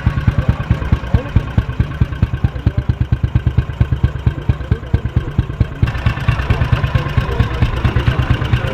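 Simson AWO single-cylinder four-stroke motorcycle engine running at a steady low speed, a rapid even beat of exhaust pulses (the 'steam hammer' sound). The sound turns brighter and more clattery about six seconds in.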